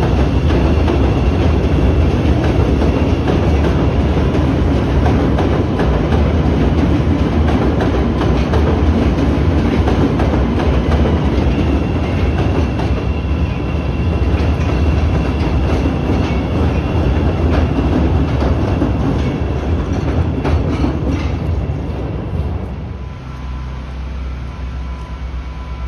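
CTA 'L' rapid-transit train running on the tracks: a steady, loud rumble with wheel clatter, with a thin steady whine above it. About 22 seconds in the rumble eases off, leaving a quieter steady hum.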